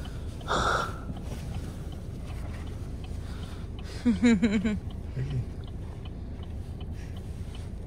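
Steady road and engine rumble inside a moving car's cabin. The stiff, frozen cloth of a pair of shorts rustles briefly about half a second in, and a short burst of voice comes about four seconds in.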